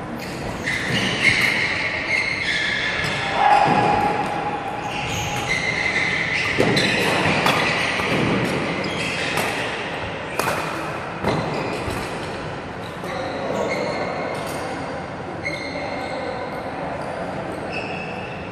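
Badminton rally: rackets striking the shuttlecock in sharp cracks several times, mixed with court shoes squeaking on a wooden floor, echoing in a large hall.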